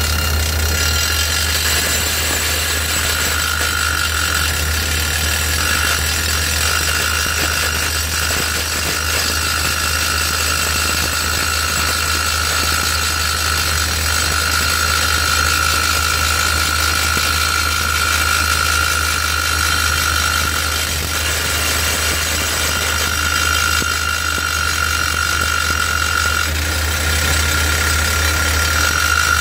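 Hydraulic drill on a skid-steer-mounted mast drilling a 41 mm hole into reinforced concrete, over the skid steer's engine running steadily. A high whine comes and goes several times.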